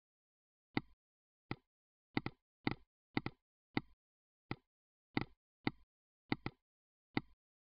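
Computer mouse buttons clicking, about a dozen sharp clicks at uneven spacing, some in quick pairs like double-clicks.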